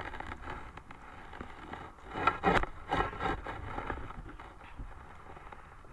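Water sloshing and splashing around wading legs while a cast net is hauled in, with a louder stretch of splashing in the middle.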